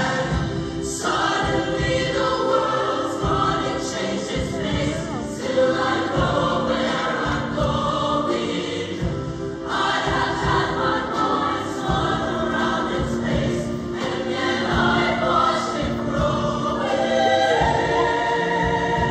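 Large high-school show choir singing in full chorus, with a live backup band underneath keeping a steady beat.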